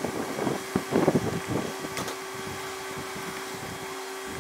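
Hand and a thin plastic squeegee card rubbing and scraping static-cling tint film against the inside of a car's rear quarter window: a few scuffs in the first couple of seconds and a sharp click about two seconds in. A steady low hum runs underneath.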